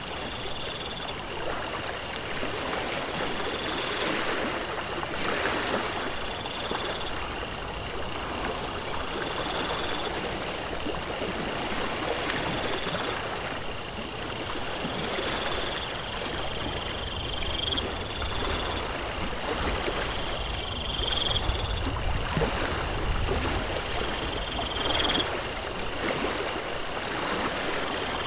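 Steady rush of a running stream, with short, slightly rising high calls repeating every two seconds or so and a faint pulsing trill above them.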